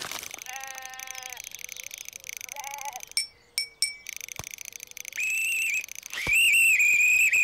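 A short sheep bleat near the start, then two shrill blasts on a whistle, the second longer and the loudest.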